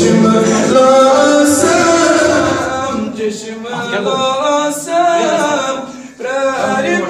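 A man singing a naat, a devotional song in praise of the Prophet Muhammad, in long wavering notes with a short break about six seconds in.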